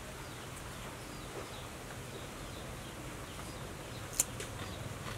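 Quiet outdoor background noise with faint bird chirps, and one sharp click about four seconds in.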